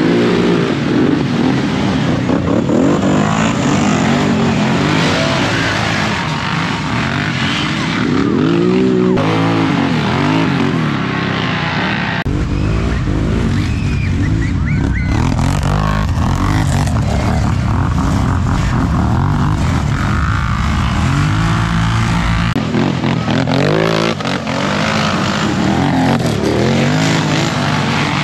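ATV engines revving and accelerating hard in a pack, their pitch swinging up and down as the throttles open and close. The sound changes abruptly twice, about 12 and 23 seconds in.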